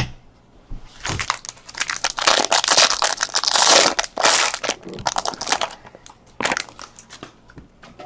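A foil trading-card pack wrapper being crinkled and torn open by hand. The dense crackling runs from about a second in to about five seconds, with a short crinkle again past six seconds.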